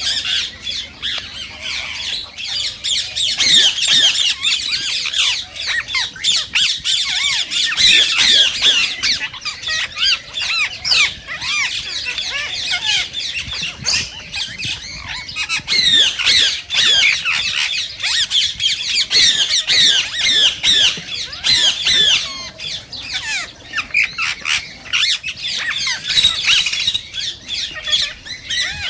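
Indian ringneck parakeets squawking and chattering nonstop, with rapid overlapping shrill calls.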